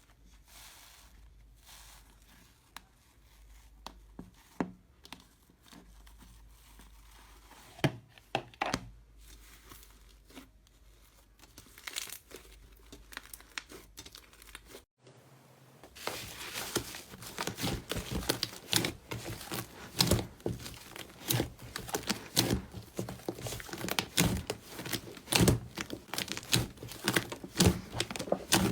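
Slime being handled and pressed, giving scattered sticky clicks and pops at first, then, after a brief break, a dense run of rapid crackling clicks.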